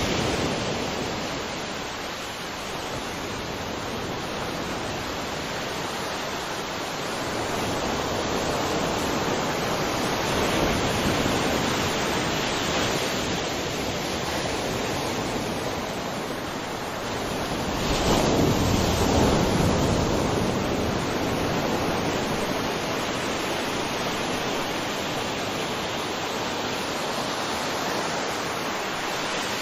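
Ocean waves breaking and washing on a shore in a steady roar of surf that swells and eases, loudest as a wave breaks about 18 seconds in.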